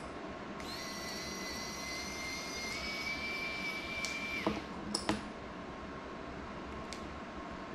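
A steady high-pitched electronic tone that steps up slightly in pitch partway through, holds for about four seconds, then cuts off. A few light clicks follow, over a faint steady hum.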